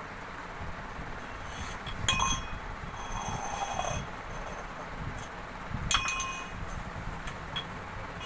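A metal drinking tumbler clinks twice against the stone floor, about four seconds apart, each strike leaving a short metallic ring, amid light scuffing as it is pushed around.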